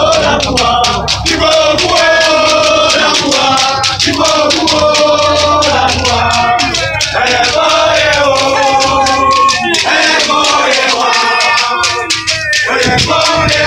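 A group of voices singing a repeated chant in short phrases of about two seconds, over a fast rhythm of sharp percussion strokes like shaken rattles.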